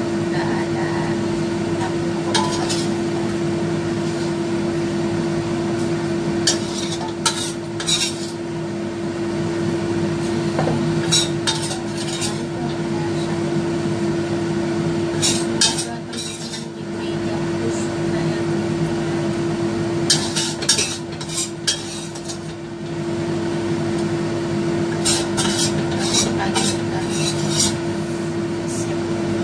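Metal ladle scooping fried tofu puffs, clinking and scraping against a ceramic bowl and a steel wok in several short runs, over a steady hum.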